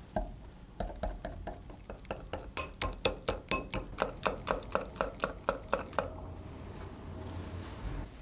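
Wire whisk beating a raw egg in a small glass bowl, its wires clinking against the glass in a quick, even rhythm of about four strokes a second. The clinking stops about six seconds in.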